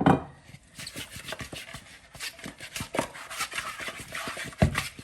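Raw chicken wings slick with oil being tossed and mixed by hand or in a bowl: a quick, irregular run of wet rubbing and slapping, with a sharp knock at the start and another near the end.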